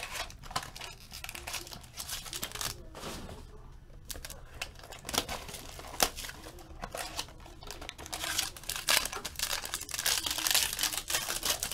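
Foil trading-card pack wrappers crinkling and tearing as packs are ripped open by hand, in irregular crackles that grow busier near the end.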